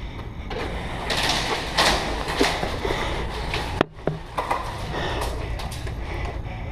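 Rustling and scuffing of a player moving through the airsoft field, over a steady low rumble, with one sharp click a little before four seconds in.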